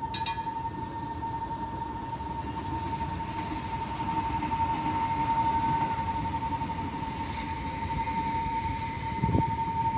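Diesel train running during shunting: a steady high-pitched whine over a low rumble that swells in the middle. A single low clunk comes near the end.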